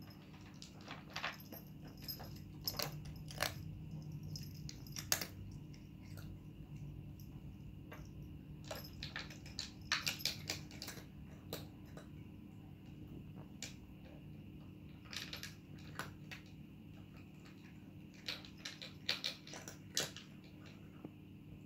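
A cat crunching dry kibble from a plastic feeder bowl: irregular sharp crunches and clicks, some single and some in quick clusters. A steady low hum runs underneath.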